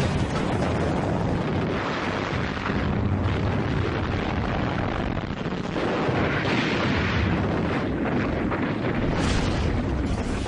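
Continuous battle din of explosions and shellfire, a dense rumble that swells several times.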